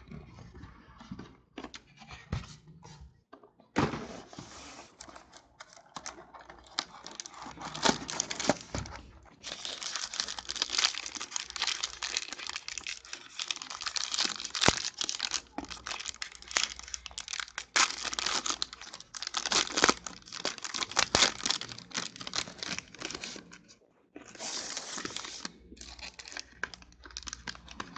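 A cardboard trading-card hobby box being handled and opened, with scattered light clicks. After a few seconds comes a long stretch of foil pack wrapper crinkling and being torn open, full of sharp crackles.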